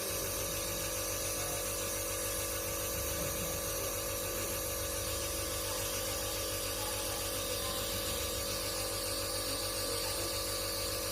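Compressor nebulizer running steadily during an inhalation treatment: a motor hum with a fast, low pulsing and a hiss of air.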